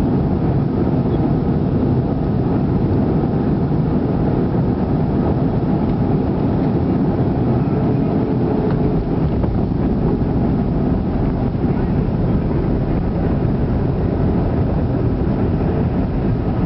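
Steady roar of engine and airflow in a Boeing 737 passenger cabin on the approach to landing, with a faint steady hum above it.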